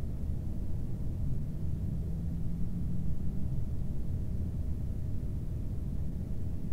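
Low, steady rumbling noise with a faint steady hum above it.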